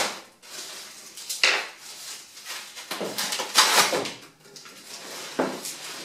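Foam and plastic packaging wrap being cut and pulled off a bicycle frame: irregular rustling and crinkling, with louder pulls about a second and a half in, between three and four seconds, and near the end.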